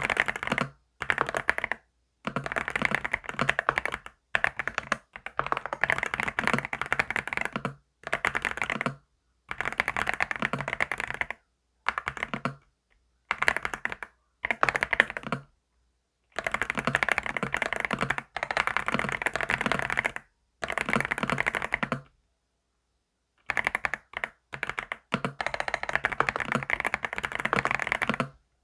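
Typing on a computer keyboard: fast runs of key clicks in bursts of a second or two, broken by short gaps where the sound stops dead.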